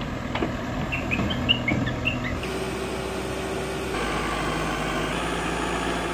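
Backhoe loader's diesel engine running steadily, with a few bird chirps in the first couple of seconds. The engine sound changes abruptly twice, getting a louder low hum near the end.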